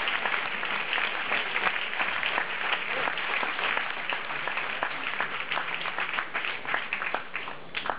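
Audience applauding, many hands clapping steadily, dying down a little near the end.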